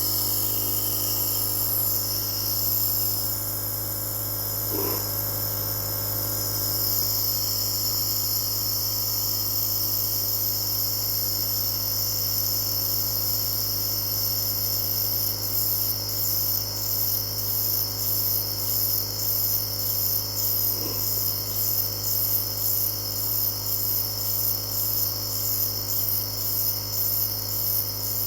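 Nebulizer compressor running with a steady hum and a hiss of mist; from about halfway the hiss begins to pulse, roughly one and a half times a second.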